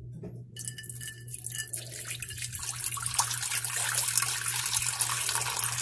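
Water pouring from a plastic jug into a weighted pie-dish water bowl. It starts about half a second in and splashes louder as the dish fills.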